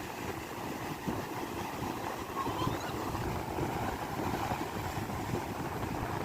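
Sea surf washing against the shore, a steady rushing noise, with wind rumbling on the microphone.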